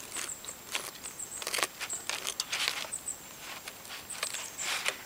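Knife cutting through a charred bannock grilled cheese sandwich on a plastic cutting board: several short scraping strokes, the strongest about one and a half, two and a half and four and a half seconds in.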